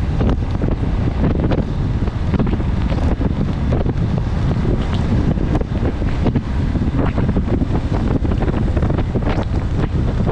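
Wind buffeting the microphone of a GoPro 9 on a moving motorcycle: a steady, heavy low rush with frequent short crackles, masking the bike and traffic.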